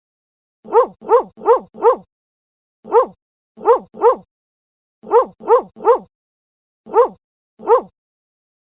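A dog barking in short, sharp, identical-sounding barks, about twelve in all, in quick clusters of four, three, three and two with brief pauses between.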